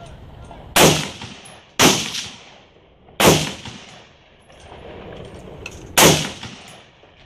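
AR-15-style rifle in .223 firing four single shots at an uneven pace, about one, two, three and six seconds in, each shot trailing off in a short echo.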